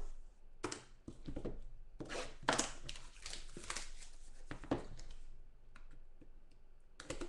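Plastic shrink wrap being torn and crinkled off a sealed box of trading cards, in a run of crackly rips over the first five seconds, then a few light taps and clicks as the box is handled.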